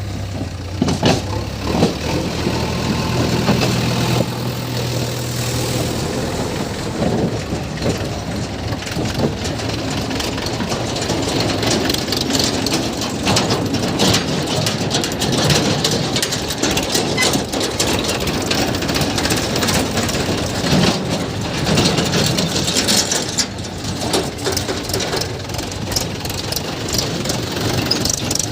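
Diesel engines of a JCB 3DX backhoe loader and a tractor running during loading, with frequent knocks and rattles. A steady hum is plain for the first several seconds, then the engine sound grows rougher and busier.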